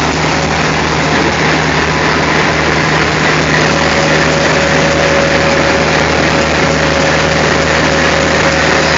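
Indian Railways WDM-class ALCO diesel locomotive engine running steadily at idle. About three and a half seconds in, a thin steady whine joins it.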